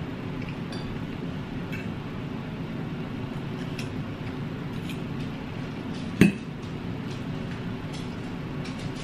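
Metal fork clinking and scraping on a ceramic plate while twirling spaghetti, with small scattered ticks and one sharp, loud clink about six seconds in. Under it runs the steady low hum of an electric box fan.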